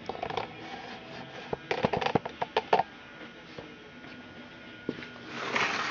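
Handling noise: a run of light clicks and knocks about one and a half to three seconds in, one more click near five seconds, then a brief rustle at the end.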